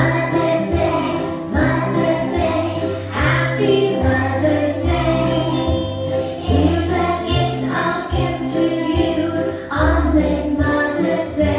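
A group of young children singing together along to a recorded backing track with a bass line.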